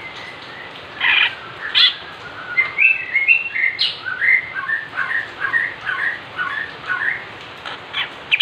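Male greater green leafbird (cucak ijo) singing: a few loud notes about a second in, then a long run of quick chirped phrases, and several sharp notes near the end.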